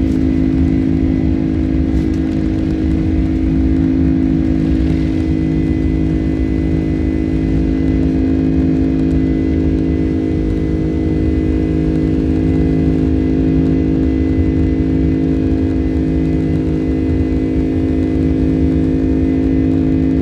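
General Electric CF6 turbofan engines of a Boeing 767-300ER running steadily at takeoff power, a loud even drone with several fixed tones over a low rumble.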